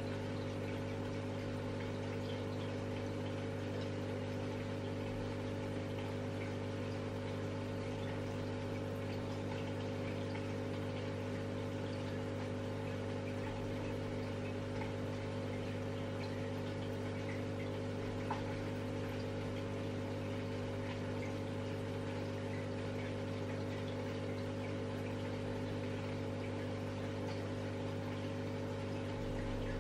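Steady low hum of the aquarium's air pump, with faint bubbling water from the air-driven sponge filter.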